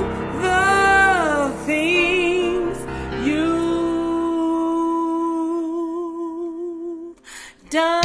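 Gospel worship music: a woman singing wordless runs over keyboard accompaniment with a sustained bass, then a long held note with a light vibrato. The sound drops out briefly near the end before the music comes back.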